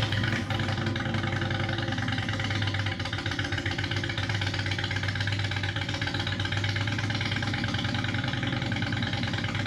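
Motorcycle engine idling steadily, with a fast even pulse, and music playing over it.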